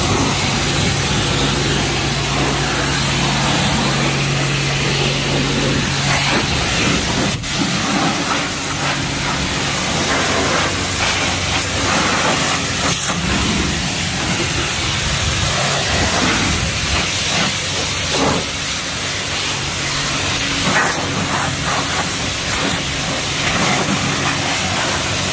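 Car-wash pressure wand spraying water, a loud steady hiss, with a low hum underneath for the first few seconds; the spray cuts off suddenly at the end.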